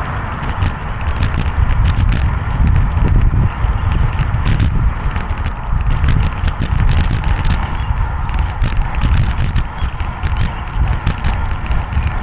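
Wind rumbling on the microphone during outdoor movement, with many irregular sharp clicks and rattles over it.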